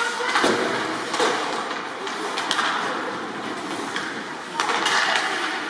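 Ice hockey play in an echoing rink: skates scraping the ice and several sharp clacks of sticks on the puck, with voices in the background.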